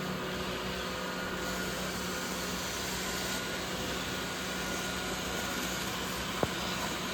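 Robot vacuum cleaners running: a steady whirring hum of their motors and brushes, with one short click about six and a half seconds in.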